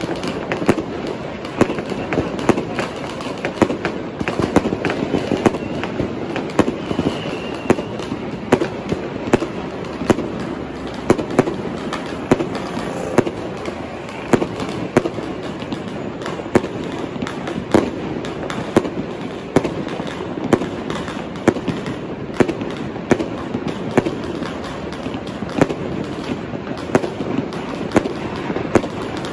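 Many fireworks and firecrackers going off at once: a dense, continuous crackling with frequent sharp bangs at irregular intervals.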